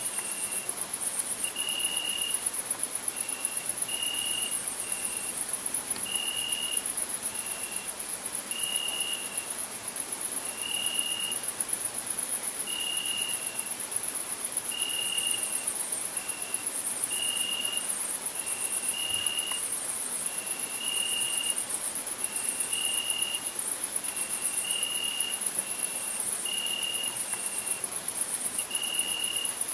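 Crickets chirping: a loud, continuous, rapidly pulsing high-pitched trill, with a second, lower chirp repeating about once a second in an uneven long-short pattern.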